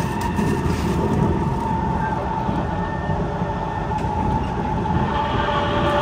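Kawasaki C151 metro train running along the track, heard from inside the passenger car: a steady rumble of wheels on rail with a continuous whine, and a few extra tones joining near the end.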